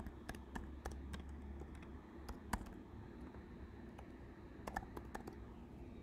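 Typing on a computer keyboard: a run of irregular key clicks, a few louder than the rest.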